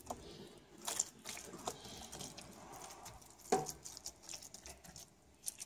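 Faint wet clicks and squelches of raw liver fillets being handled, with a few light knocks; the dicing machine is not running.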